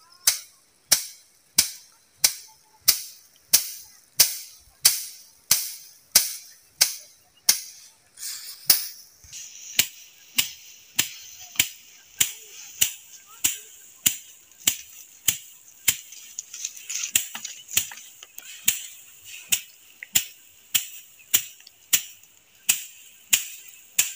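Rice being threshed by hand with a wooden stick beating bundles of harvested stalks: sharp, regular strokes about one and a half a second. After about eight seconds the strokes are a little softer and a steady high hiss joins in.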